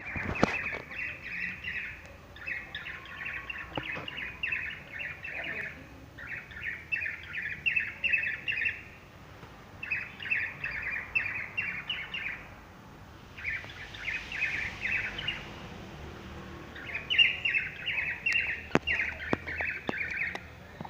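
A bird singing in six phrases of rapid, repeated chirps, each phrase lasting two to three seconds with short pauses between, with a few sharp clicks along the way.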